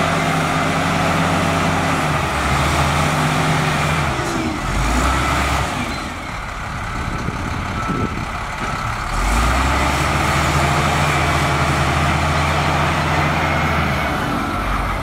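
Matador ML50 wheel loader's diesel engine running as the loader drives across sand. The engine note falls away for a few seconds about six seconds in, then comes back strongly.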